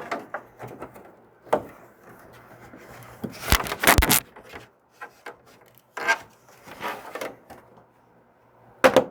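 Hard plastic parts of a hydroponic kit being handled, with scattered knocks and rubbing as a tight fitting is worked into plastic threads. The loudest clatter comes about three and a half to four seconds in.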